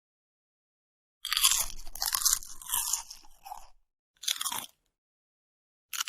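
A cat crunching and chewing chips, with crisp cracking bites. A long run of crunching starts a little over a second in, followed by two shorter bursts.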